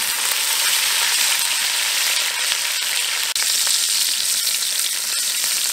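Veal steak pieces searing in hot oil in a cast-iron Dutch oven: a steady sizzle.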